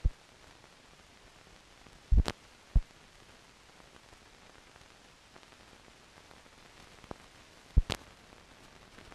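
Faint steady hiss of an old film soundtrack, broken by sharp clicks and pops: one at the start, three in quick succession about two seconds in, and a close pair near the end.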